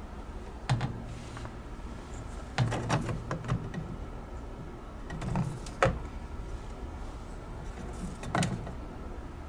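Plastic drink bottles handled in a mini-fridge door shelf: a few scattered knocks and rattles as bottles are lifted out and set back, over a steady low hum.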